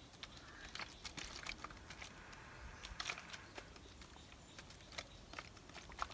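Faint scattered ticks and a light patter of kerosene being sprinkled from a plastic bottle onto lumps of charcoal.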